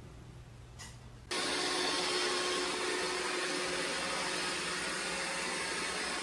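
Robot vacuum cleaner running with a steady whirring noise, starting suddenly about a second in after a faint room hum.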